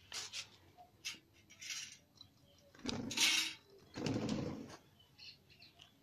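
A plum-headed parakeet fluttering its wings in short noisy bursts as it flaps off a hand, the two biggest flurries about three and four seconds in.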